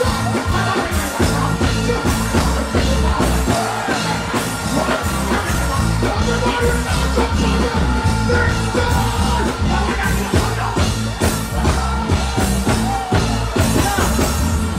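Live dancehall music played loud through a stage sound system, with a heavy bass line and a steady drum beat, and a deejay chanting on the microphone over it, with shouts from the stage.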